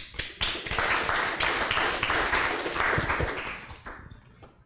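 Audience applauding, a dense patter of many hands that dies away over the last second or so.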